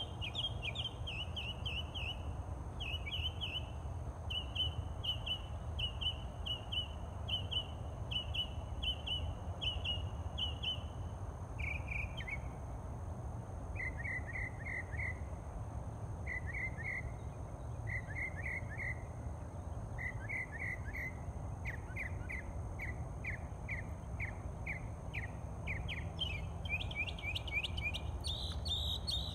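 A songbird singing its dawn song. It repeats one short down-slurred phrase about once a second, then switches to lower phrases, a quicker run of notes, and higher notes near the end. A steady low rumble runs underneath.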